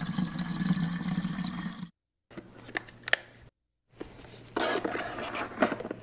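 Tap water running from a kitchen faucet into the plastic water tank of a robot vacuum-mop, stopping suddenly about two seconds in. Then a few light clicks and knocks of plastic being handled.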